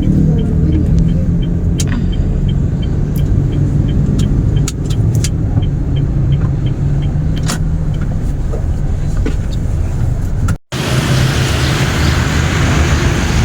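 Car running, heard from inside the cabin as a steady low rumble, with a faint regular ticking over it for most of the time. About ten seconds in the sound cuts out for an instant, and a brighter, hissier traffic noise follows.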